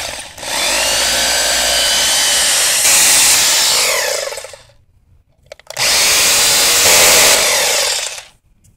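Power drill boring anchor holes into the concrete top of a septic tank, in two runs of about four seconds and two and a half seconds with a short pause between.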